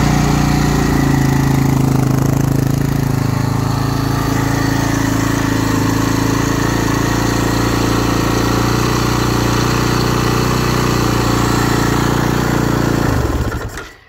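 2009 Husaberg FE 450 single-cylinder four-stroke engine running at a steady, unchanging speed, then cutting off about 13 s in. The idle is set far too high, which the owner noticed soon after a valve-clearance and oil service.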